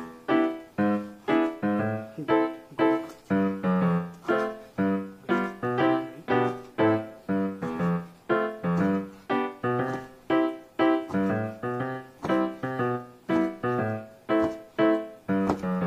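Background music on a piano-like keyboard: a steady run of short notes that each fade quickly, about two a second.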